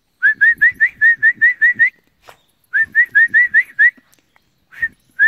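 A person whistling in quick runs of short rising notes, about five a second, calling a dog back.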